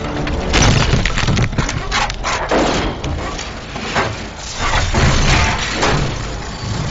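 Action-film fight sound effects: a rapid string of heavy impacts and crashes, roughly one every half second to a second, over a continuous low rumble.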